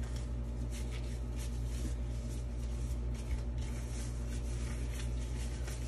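Gloves being pulled on: faint scattered rustling and rubbing over a steady low hum.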